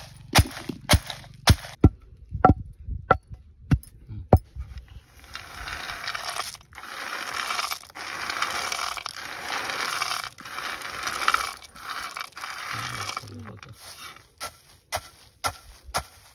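Long wooden pestle pounding in a stone mortar, sharp knocks about two a second. A stretch of steady rustling noise fills the middle, then the pounding starts again, now on peanuts, near the end.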